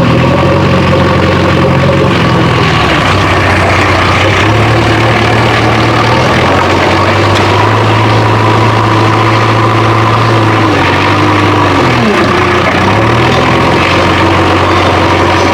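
Heavy engine idling steadily. About eleven seconds in, its pitch drops briefly, then picks up again.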